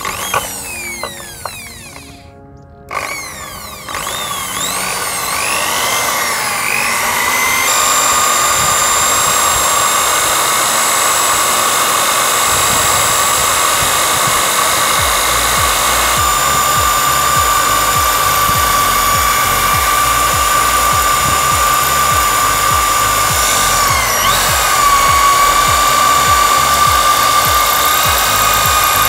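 Cordless drill boring out a rivet in a steel motorcycle clutch housing, the bit cutting into the metal. From about four seconds in the motor runs steadily under load with a high, even whine. The rivets are being drilled out to free the clutch housing's hardened rubber dampers for replacement.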